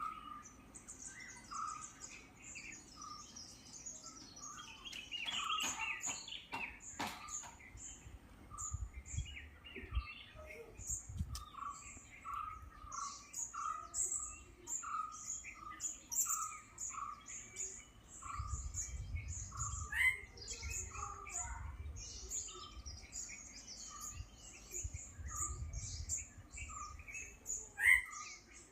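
Several birds chirping and calling: one bird repeats a short note about once or twice a second while many quick, high chirps go on above it. Bouts of low rumble come and go underneath.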